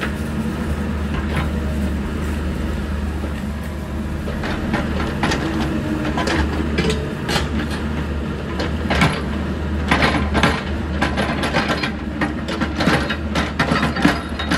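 Mini excavator's diesel engine running steadily while its steel bucket knocks and scrapes against a yellow-painted parking-lot pole, prying it loose. The knocks start about four seconds in and come thicker and louder from about nine seconds in.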